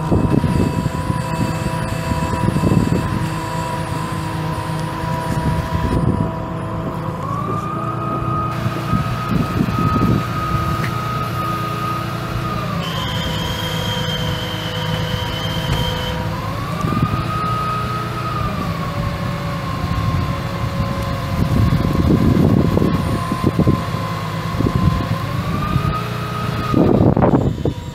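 A 2009 Dodge Ram 5500 bucket truck's 6.7 L turbo-diesel running, with a steady whine that steps up in pitch and back down several times. A brief higher tone comes about halfway through, and a few knocks near the end.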